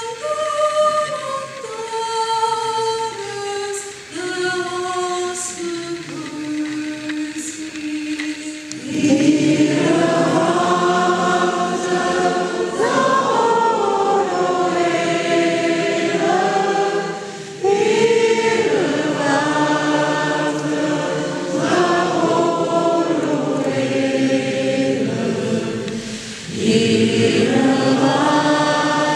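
A cappella choir of mostly women's voices singing. One voice carries the melody alone at first, then the full choir comes in about nine seconds in, singing in long phrases with brief breaths between them.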